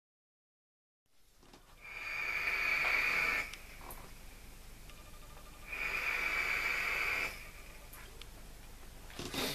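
Two draws on a vape atomizer, each about a second and a half long and starting about two seconds in: air pulled through the atomizer's airflow gives a steady hiss with a thin high whistle.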